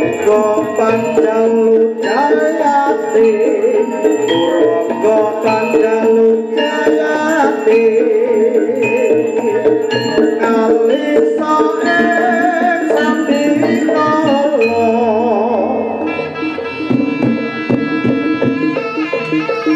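Traditional East Javanese jaranan music: hand drums keep a busy rhythm under a wavering, wailing melody line. About sixteen seconds in it shifts to a sparser passage of steady, ringing held tones.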